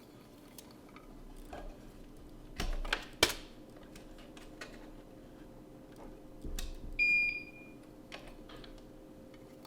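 Tools being handled on a soldering workbench, with a few sharp clicks and knocks, then a single short electronic beep about seven seconds in, over a low steady hum.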